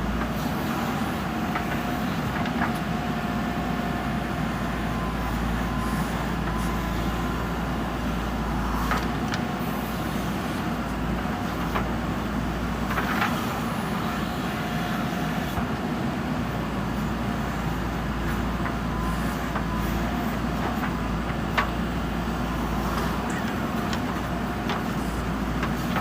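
JCB 3DX backhoe loader's diesel engine running steadily under work, with a few sharp knocks standing out now and then.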